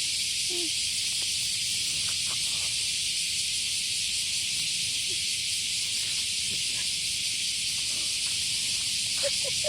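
A chorus of cicadas shrilling steadily, a continuous high-pitched buzzing hiss that does not let up.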